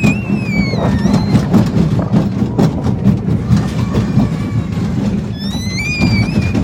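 Kiddie roller coaster car running along its steel track, a steady rumbling clatter, with high-pitched squeals just after the start and again near the end.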